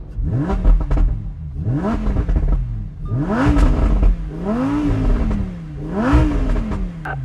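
Lamborghini Huracán EVO's V10 engine revved while parked: five throttle blips about every second and a half, each rising in pitch and dropping back.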